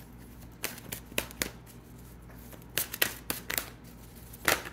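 A deck of tarot cards being shuffled by hand: short, irregular snaps and riffles of the cards, the loudest near the end.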